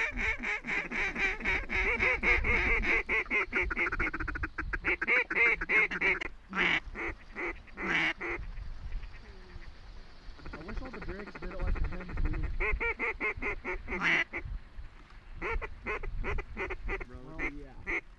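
A large flock of ducks and geese calling overhead in a dense, rapid chorus. A few louder single calls stand out after about six seconds, the calling thins for a few seconds, then it picks up again.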